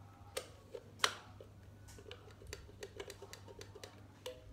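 Irregular light clicks and taps, the sharpest just after the first second, over a steady low hum.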